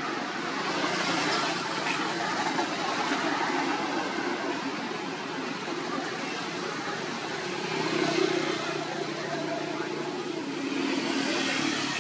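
Steady rushing outdoor background noise that swells and eases every few seconds, with no single clear source.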